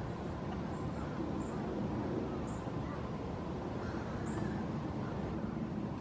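Steady outdoor background noise, a low rumble, with a few faint, very short high chirps scattered through it. No woodpecker pecking stands out.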